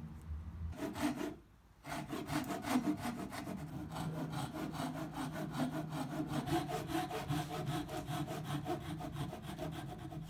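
Backsaw cutting across a hardwood leg against a clamped guide block, sawing a tenon shoulder by hand: a steady run of quick, even strokes, with a brief break about a second and a half in.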